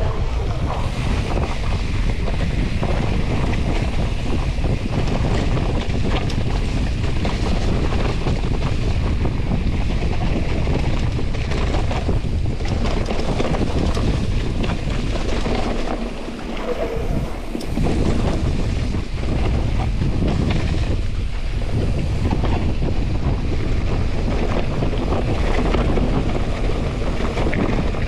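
Wind buffeting the microphone of a handlebar camera on a moving mountain bike, mixed with the rolling noise of the bike over soaked trail. The low rumble eases for a moment about halfway through.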